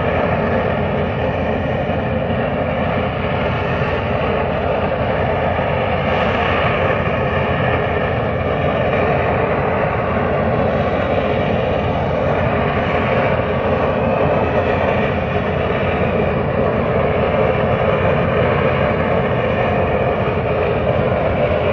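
Offshore oil platform venting its exhaust plume: a loud, steady rushing noise that does not let up.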